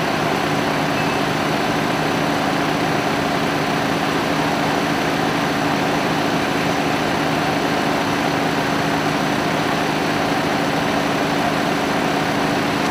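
Fire engine's diesel engine running steadily at close range, a constant drone with a steady low hum and no change in speed.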